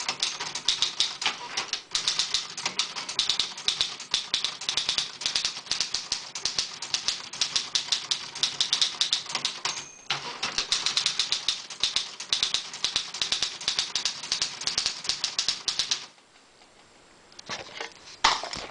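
Olivetti Lettera 22 manual portable typewriter being typed on fast: a steady stream of key strikes and typebar clacks, with a brief break about ten seconds in. The typing stops near the end, followed by a few scattered clicks.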